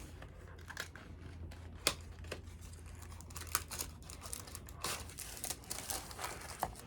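Packaging being handled as a lightsaber display stand is lifted out of its box: light rustling with scattered small clicks and taps, over a faint steady low hum.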